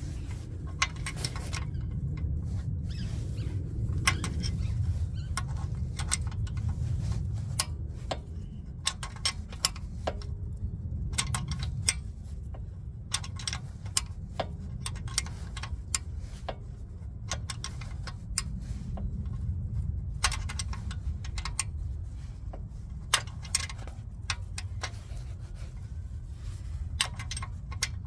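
Socket ratchet clicking in short runs as bolts on a motorcycle engine's cam-cover area are turned, with light metal clinks of tools and fasteners, over a steady low rumble.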